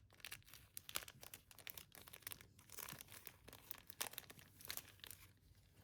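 Faint paper and packaging rustling and crinkling as a package is unwrapped by hand, in an irregular run of small crackles and taps.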